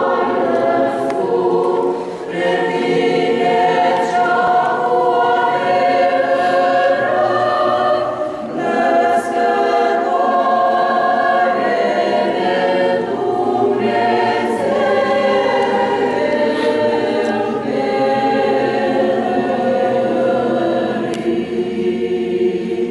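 Mixed choir of men and women singing a cappella in long, held phrases, with brief pauses for breath about two seconds and about eight seconds in.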